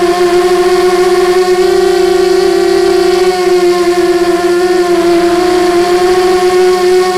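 Brushless motors of a 250-size FPV quadcopter (DYS 1806 2300KV) whining steadily in flight, heard through the onboard camera's microphone. The pitch wavers a little as the throttle changes.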